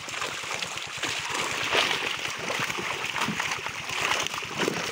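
Continuous heavy splashing and churning of water from a netful of carp thrashing in the shallows, a dense run of irregular small splashes.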